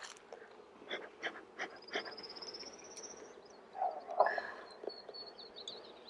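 Wooden beehive frames being handled: several light knocks, then a short squeak about four seconds in as a frame is lifted out of the nuc box. A high, rapid trill rises in the background, twice.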